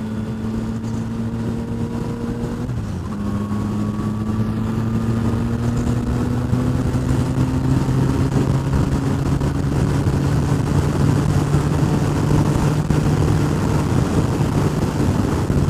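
Onboard sound of a motorcycle being ridden at road speed: the engine note breaks briefly about three seconds in, then climbs slowly in pitch as the bike gathers speed, over a steady rush of wind.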